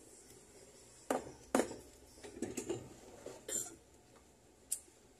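Small metal jeweller's hand tools clinking and clattering as they are picked up and set down among other tools. There are two sharp clinks about a second in, a quick cluster around two and a half seconds, and single clinks later on.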